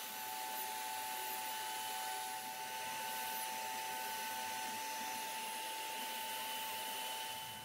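Makita compact router spindle on a OneFinity CNC running steadily at about 18,000 RPM, a steady whine over hiss, as a 1/16-inch downcut spiral bit cuts 1/4-inch MDF at 110 inches per minute.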